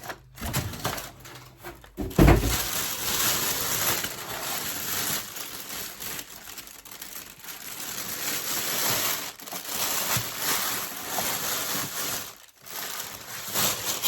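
Packaging being handled as a serger sewing machine is lifted out of its box and unwrapped: continuous rustling and crunching, with a heavy thump about two seconds in.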